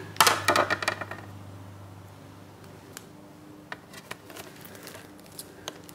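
A quick run of light clicks and taps in the first second as hard 3D-printed plastic parts are handled and set on a wooden workbench, then quiet room tone with a few faint ticks as one plastic piece is pressed onto the other.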